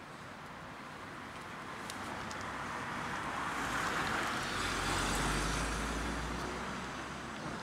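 A car passing by on the road: tyre and engine noise swells to a peak about five seconds in, with a low rumble, then fades away.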